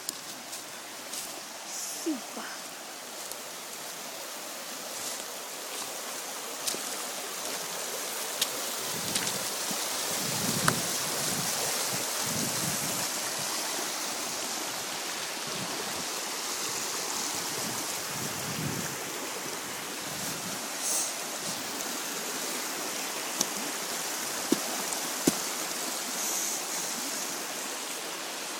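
Flood-swollen creek after heavy rain: a steady rush of churning whitewater that grows louder toward the middle, with a few sharp clicks.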